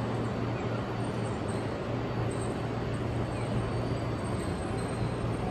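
Steady background noise of a covered tram platform: a constant low hum under an even rumble, with nothing standing out.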